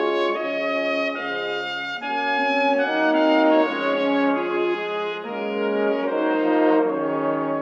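Instrumental background music of held, overlapping notes that change pitch every half second to a second.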